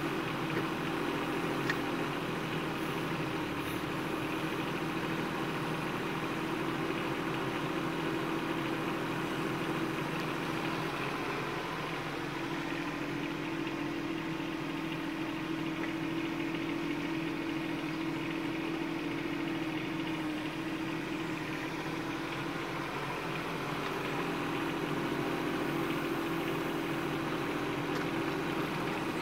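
Bobcat 418 mini excavator's small diesel engine running steadily while the arm digs and swings, with no change in engine speed.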